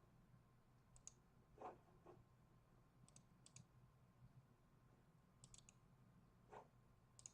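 Faint computer mouse clicks, several in quick double-click pairs, over a low steady room hum.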